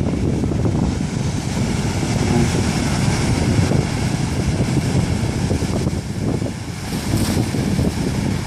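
Heavy wind buffeting the microphone over rushing water, aboard a Zapcat inflatable racing catamaran under way.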